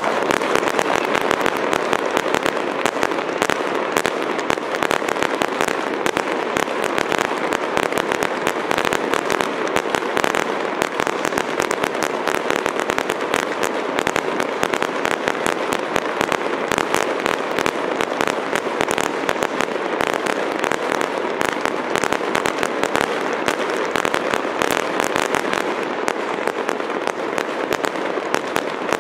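Aerial fireworks bursting: a dense, continuous run of rapid pops and crackles that never lets up.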